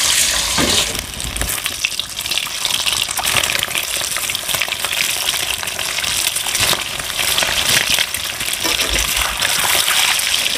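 Peeled, pierced hard-boiled eggs frying in hot oil in an aluminium kadhai: a steady crackling sizzle with many small pops and spatters, as more eggs are dropped into the oil.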